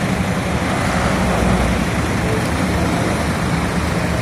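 Bus engines idling close by, a steady low hum under a constant wash of engine and traffic noise.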